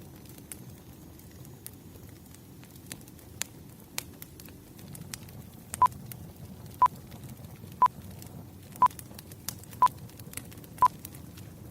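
Wood fire crackling with scattered pops. About six seconds in, a timer starts beeping, one short single-pitched beep each second, six beeps in all: a countdown signalling the end of a focus period.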